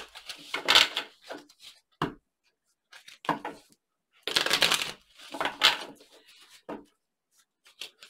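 A deck of tarot cards being shuffled by hand: a string of short shuffling bursts, irregularly spaced, with silent gaps between them.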